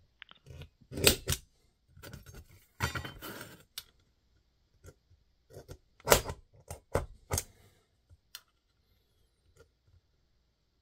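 A centre punch clicking against a thin steel plate to mark the hole centres, about half a dozen sharp metallic clicks, with the plate rubbing and scraping on the bench between them. The loudest clicks come about a second in and about six seconds in.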